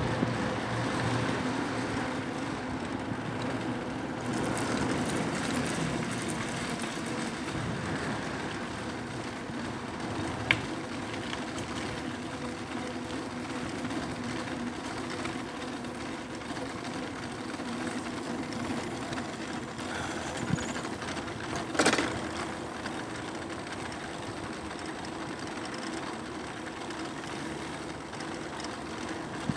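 Aostirmotor S17 e-bike on the move: a steady motor hum over tyre and wind noise. A short knock about ten seconds in and a louder rattle a little past twenty seconds, as the bike goes over bumps.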